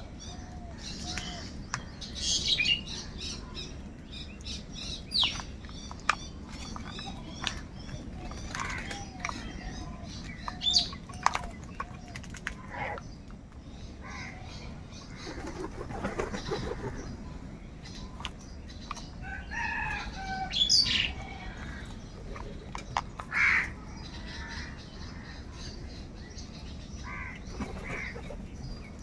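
A flock of house crows feeding together: scattered harsh caws, the loudest at about 2, 11, 21 and 23 seconds in, with wing flaps as birds hop and jostle around the food. High, fast chirping runs in the background, mostly in the first few seconds.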